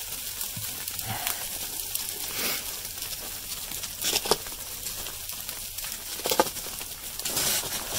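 Steady hiss of sleet and freezing rain coming down, with a few scattered crunches of footsteps on icy, crusted snow.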